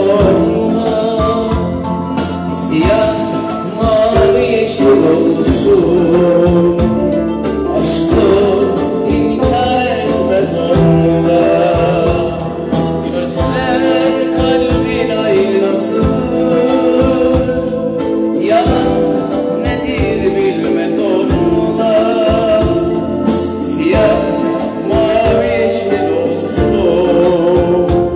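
A Turkish song performed live: a man singing with oud and electronic keyboard accompaniment.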